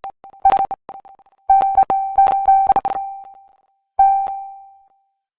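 A short electronic music sting: the same mid-pitched synth note struck over and over in a quick, stuttering rhythm, ending with a last note about four seconds in that rings out and fades.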